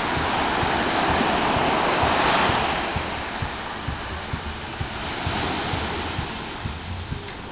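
Small waves breaking and washing up on a sandy beach, a steady rush of surf that swells about two seconds in and again around five seconds.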